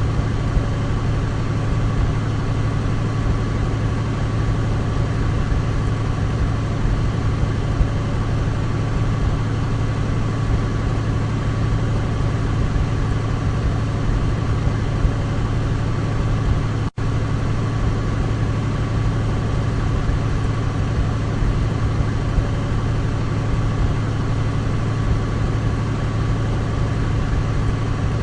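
Douglas DC-3's twin radial piston engines droning steadily at an even pitch. The sound cuts out for an instant about seventeen seconds in, then carries on unchanged.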